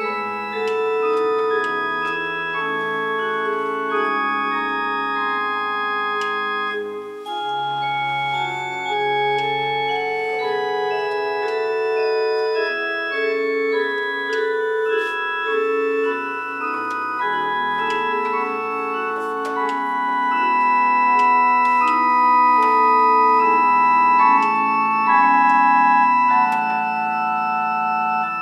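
Two-manual electronic church organ playing slow, held chords, with deep bass notes dropping in and out. It grows somewhat louder near the end.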